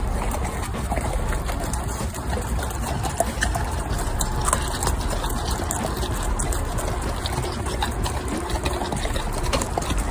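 Horses walking on a wet, muddy track: hooves squelching and splashing in the mud in an irregular patter of small clicks.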